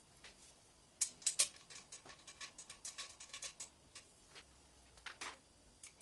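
A quick run of small, sharp clicks, several a second, lasting about three seconds, loudest at the start, then a few scattered clicks near the end.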